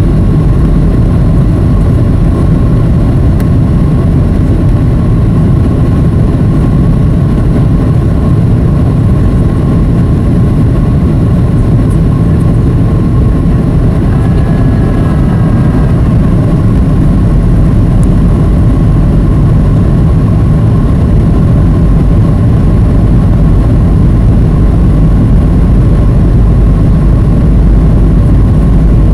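Boeing 737 cabin noise heard from a window seat over the wing in flight: a loud, steady low rumble of jet engines and rushing air, with a faint steady hum running through it.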